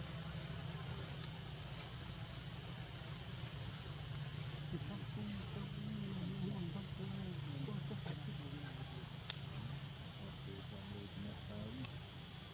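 A chorus of insects in the forest keeps up a steady, unbroken, high-pitched drone.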